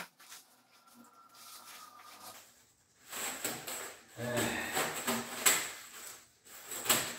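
Flexible plastic electrical conduit and the wires inside it being handled and pushed about, rustling and scraping in fits and starts from about three seconds in.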